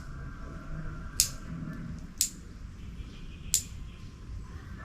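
Three short, sharp clicks over faint room noise, spaced about a second apart.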